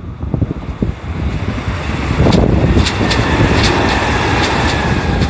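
Kintetsu red-and-white electric commuter train passing close by, its noise swelling from about two seconds in, with a run of sharp wheel clacks over rail joints. Wind buffets the microphone throughout.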